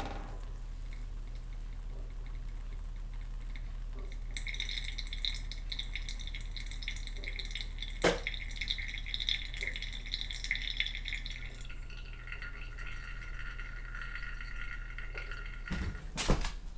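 Thin stream of hot water poured from a gooseneck kettle onto coffee grounds in a paper-filter pour-over dripper, starting about four seconds in and going on for several seconds, then a lower, thinner trickle, over a low steady hum. A sharp click midway and a few knocks near the end.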